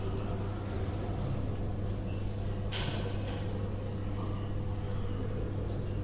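Room tone of a large, reverberant nursing-home day room: a steady low hum with faint scattered background activity, and one short noise about three seconds in.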